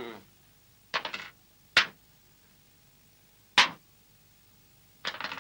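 Sharp taps in small groups: a quick run of three or four about a second in, single taps twice after that, and another quick run near the end.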